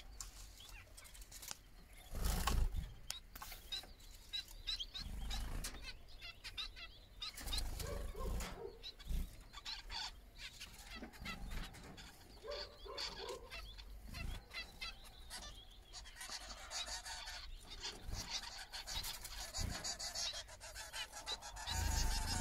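Small aviary birds chirping and calling: many short high chirps, thickest near the end, with a few lower calls mixed in and several dull low bumps on the microphone, the strongest about two seconds in.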